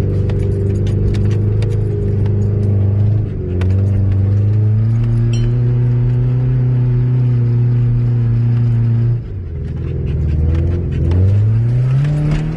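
Subaru EJ22 flat-four engine pulling under load at steady revs, with a brief dip about three seconds in; about three-quarters of the way through the revs drop sharply, then climb again. Light rattling clicks over it.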